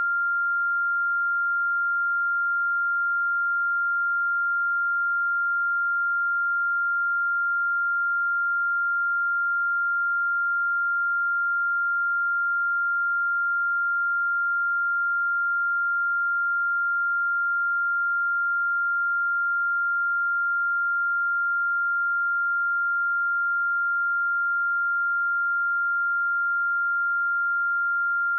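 A pure electronic sine tone at 1394 Hz, held steady at one pitch and one level throughout: a test tone for checking speakers or headphones.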